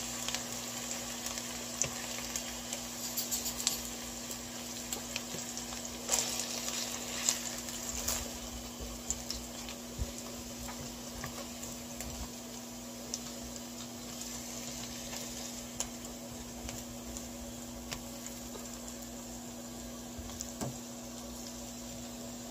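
Pork tocino slices frying in oil in a non-stick pan: a steady sizzle, with scattered clicks and scrapes of metal tongs against the pan as the cooked pieces are lifted out. A low steady hum runs underneath.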